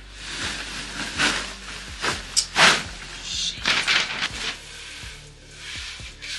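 Background music over repeated rubbing strokes, like sandpaper worked over wood.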